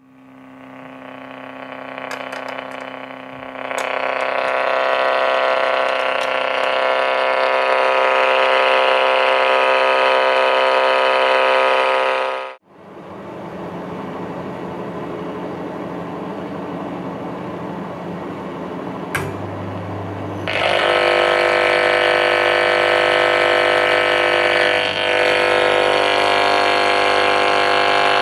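AM radio speaker blaring electrical interference: a loud buzz of many steady tones that cuts off suddenly about twelve seconds in, then a rougher, noisier buzz. That buzz jumps louder with a deep hum about twenty seconds in, as the radio's antenna is held against a running microwave oven.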